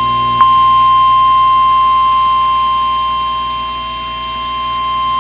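Emergency alert attention tone: a single steady electronic tone of about 1 kHz, the NOAA Weather Radio warning alarm tone that comes before a tornado warning message. A click sounds about half a second in, and the tone sags in level around four seconds in, then recovers.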